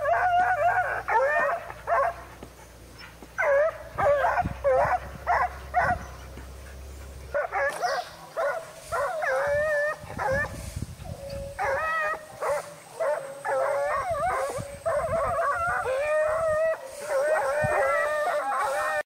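Hunting dogs baying and yelping, one cry after another with a few short pauses, including some longer drawn-out howls.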